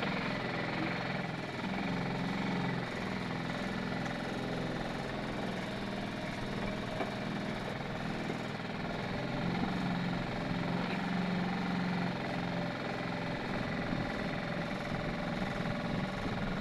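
Motor of a covered wooden passenger boat running steadily under way: an even, low engine hum.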